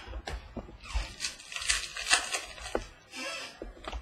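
A football trading-card pack being torn open, its wrapper crinkling and ripping, with cards clicking and sliding in the hands, most of it in a busy stretch through the middle.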